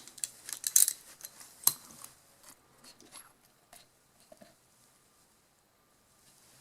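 Small hard clicks and clinks of carburetor parts being unscrewed and handled while the sediment bowl is taken off, busiest in the first two seconds and then thinning out.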